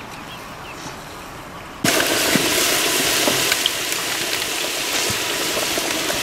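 Rounds of bread dough deep-frying in hot oil: a loud, steady sizzle with scattered crackles that starts suddenly about two seconds in.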